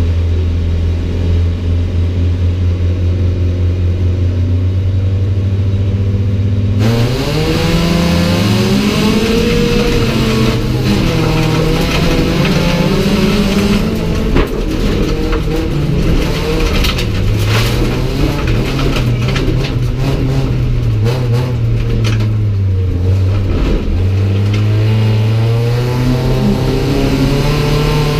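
Race car engine heard from inside the stripped cockpit, held at steady revs for about seven seconds, then suddenly revving hard as the car launches. The engine pitch then climbs and drops again and again through gear changes and corners, with constant rattling and clatter against the body.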